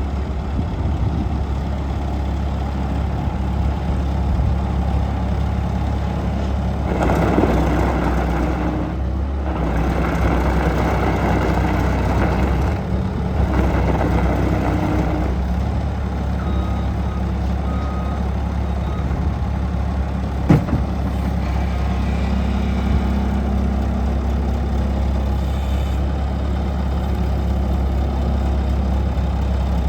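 A 2004 Bobcat S160 skid steer's diesel engine running steadily. It gets louder in two stretches about a quarter and half way through, and there is one sharp click about two thirds of the way in.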